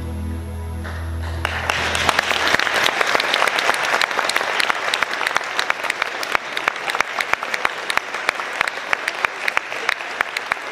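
A song's final held chord dies away in the first two seconds, then a room full of people applauds steadily.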